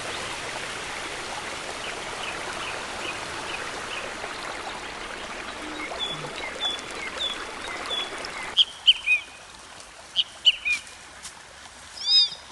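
Running water of a stream, a steady rush, with birds chirping over it; the water sound cuts off abruptly about two-thirds of the way through, leaving short, repeated bird calls.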